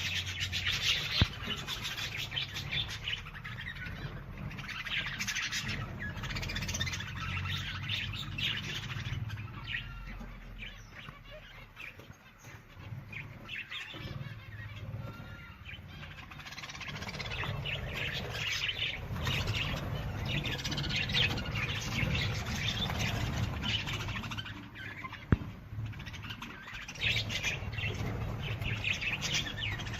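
Many wild birds chirping and calling at once, their calls overlapping, with a low steady rumble underneath. The chirping thins out for a few seconds in the middle. Two sharp clicks, one about a second in and one near the end.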